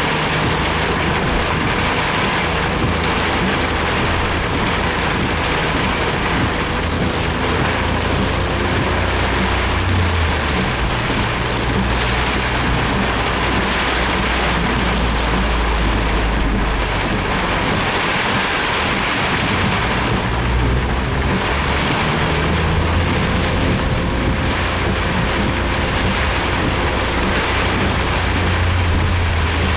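Heavy rain pounding on a Suzuki Jimny, heard from inside the cabin as it drives, with a steady low rumble of engine and road underneath.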